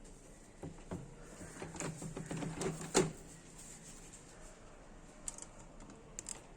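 Items being handled during unpacking: irregular rustling and light clicks, then a sharp knock about three seconds in, and a few faint ticks near the end.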